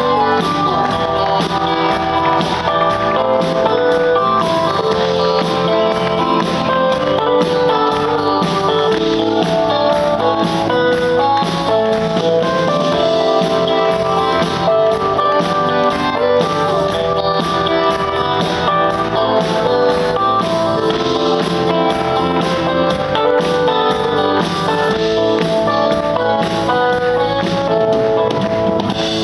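Live band playing an instrumental passage without vocals: electric bass guitar and keyboards over steady percussion.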